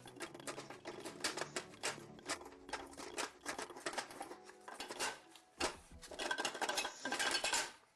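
Rapid clicking and clinking of hard, metallic-sounding objects, many sharp strikes in quick succession, densest near the end before stopping suddenly.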